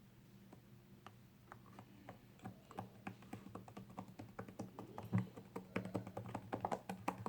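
Faint, quick irregular clicking and tapping of slime being worked and stirred, growing busier after the first second or so, over a steady low hum.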